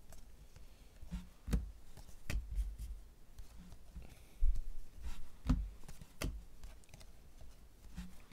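Football trading cards flipped through by hand, one at a time from the front of a stack to the back: light irregular clicks, taps and slides of card stock, with one sharper tap about four and a half seconds in.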